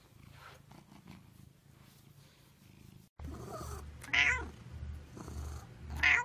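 Tabby kitten meowing twice, loud and high, about two seconds apart, the second near the end, over a low, evenly pulsing purr.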